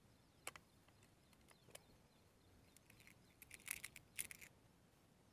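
Faint clicks and short rattles of a break-barrel spring air rifle being handled and loaded between shots, with a cluster of sharper clicks about three and a half to four and a half seconds in.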